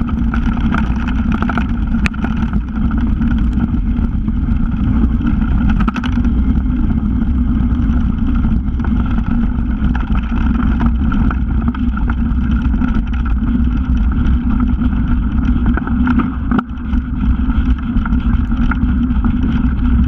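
Mountain bike descending a stony dirt track: steady wind noise on the bike-mounted camera's microphone over the knobby tyres crunching on gravel, with frequent sharp clicks and rattles from the bike.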